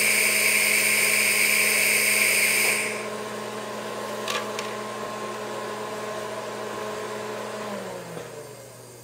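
DC TIG welding arc on titanium pipe, hissing steadily for a short burst and cutting off abruptly about three seconds in. This is the pulsed foot-pedal technique: one burst lays one ripple of filler, then the arc stops so the weld can solidify and cool. A quieter machine hum carries on after the arc stops, with two faint clicks, and winds down with a falling pitch near the end.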